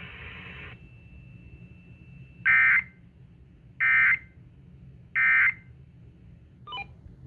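Emergency Alert System end-of-message signal: three short, identical buzzy bursts of SAME digital data, evenly spaced about a second and a half apart, marking the end of the warning broadcast. Just before them, the static of the broadcast audio cuts off under a second in.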